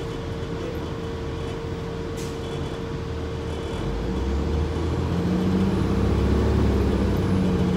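Gillig Low Floor transit bus heard from inside the cabin while under way: a steady whine over engine rumble that builds as the bus pulls away from about four seconds in. A short hiss of air comes about two seconds in.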